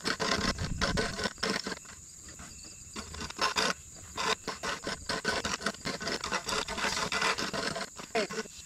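Irregular scraping and scratching, many short rough strokes, over a steady high-pitched insect drone.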